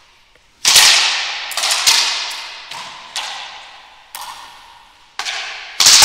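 Racquetball rally: the ball cracks sharply off racquets and the court walls about seven times, each crack echoing and dying away in the enclosed court.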